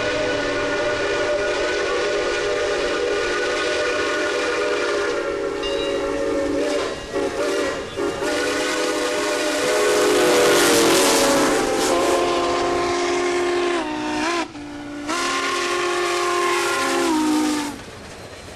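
Steam locomotive's chime whistle blowing long blasts, several notes sounding together as one chord, with short breaks and brief sags in pitch. About ten seconds in, a loud hiss of the passing locomotive rises under it. The whistle cuts off suddenly near the end.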